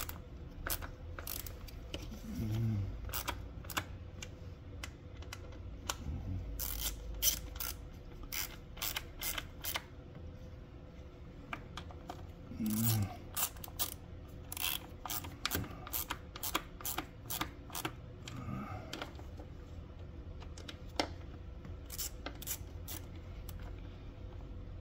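Hand ratchet clicking in irregular runs of sharp ticks as bolts are run down snug in stages, with a few dull bumps of tool handling between runs.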